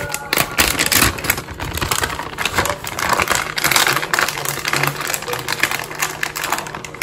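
Plastic Sargento shredded-cheese bag crinkling and crackling as it is handled and opened by hand.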